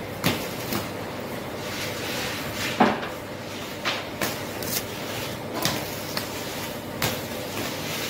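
Bakery work sounds: scattered knocks and clatters of wooden oven peels and loaves being handled at a stone oven, over a steady background hum. The loudest knock comes a little under three seconds in.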